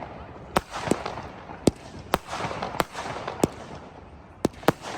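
Fireworks going off: about eight sharp bangs at uneven intervals, two close together near the end, over a steady background hiss.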